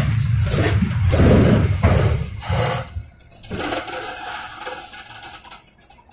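Interior running noise of a KTM-28 (71-628-01) tram: a loud rumble of wheels on rails and running gear with some knocks, then fading steadily as the tram slows to a stop, becoming faint near the end.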